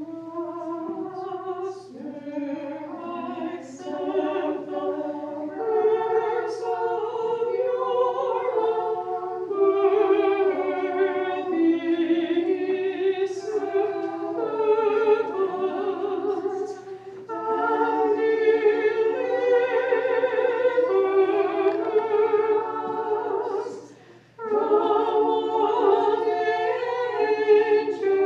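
Unaccompanied Orthodox liturgical chant sung by a small group of voices as part of a moleben, with long held notes and brief breaks between phrases.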